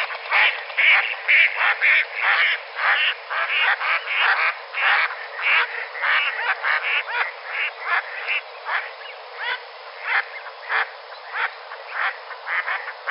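A fast, uneven string of short animal calls, about two a second, crowded together at first and more spaced out in the second half.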